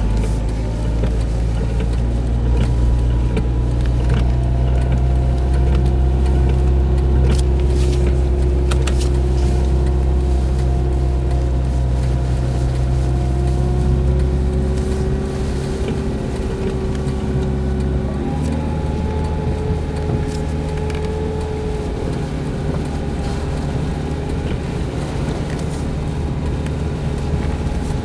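Car engine running while driving, heard from inside the car; its pitch holds steady, then steps to a new level about eighteen seconds in.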